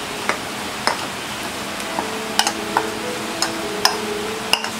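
A steel spoon clicks against the rims of a plastic bowl and a glass bowl as gram flour is scraped and tipped from one into the other. There are about eight sharp, irregular clicks over a steady hiss.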